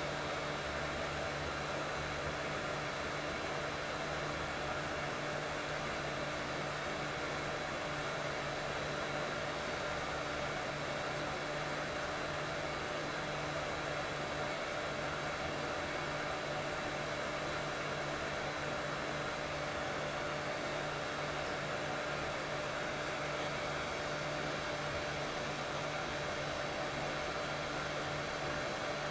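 Steady baby-soothing white noise: an even rushing hiss with a faint steady hum underneath.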